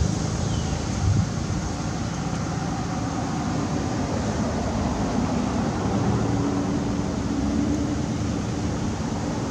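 Steady low rumbling background noise, with a short low thump about a second in.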